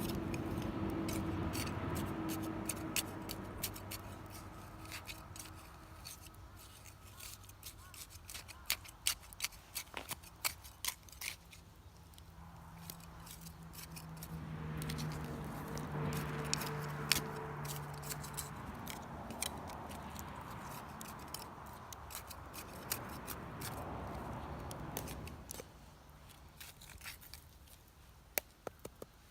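Wood campfire crackling, with many irregular sharp pops and snaps. A low hum swells and fades twice, once at the start and again from the middle to near the end.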